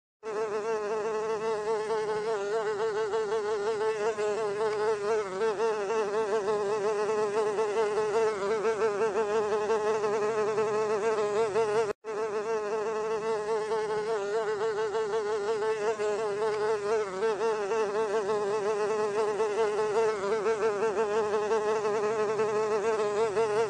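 Housefly buzzing in flight: one continuous drone whose pitch wavers slightly, cutting out for an instant about halfway through.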